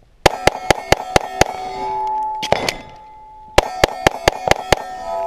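Rapid pistol fire at steel plate targets, each shot followed by the ringing clang of struck steel: a quick string of about six shots, a pause of about two seconds with the steel still ringing, then another quick string of about six shots.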